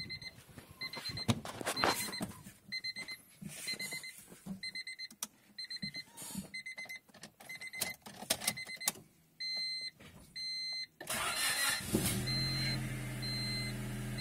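A Honda Civic's dashboard chime beeping steadily, about once every 0.7 s, over clicks and knocks in the cabin. About eleven seconds in, the 1.6-litre D16Y7 four-cylinder cranks and catches, then idles steadily with the chime still going; it idles high, which the owner puts down to there being no coolant in the engine.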